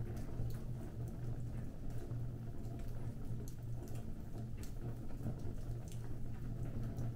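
Fire crackling: scattered small pops and snaps over a steady low rumble.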